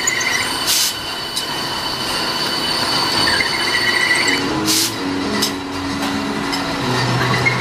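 Bench drilling machine cutting holes in steel hinge plates: a steady mechanical whine with metal-on-metal squealing, broken by two short sharp bursts about four seconds apart.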